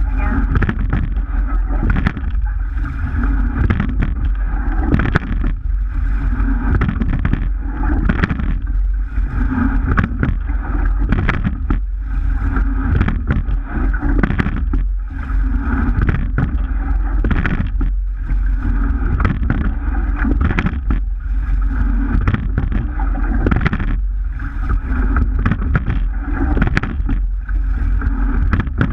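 Sweep-oar rowing shell under way: oars knocking in their gates and seats rolling on their slides, repeated with the strokes, over water rushing along the hull that swells and fades. A steady low rumble of wind runs under it all.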